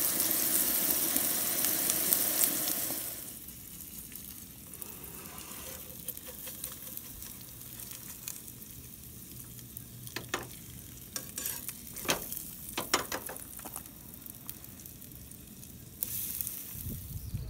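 Meat patties and eggs sizzling in a skillet on a camp stove. The sizzle is loud for the first three seconds, then quieter and steady. Several sharp scrapes and taps of a spatula against the pan come about ten to thirteen seconds in.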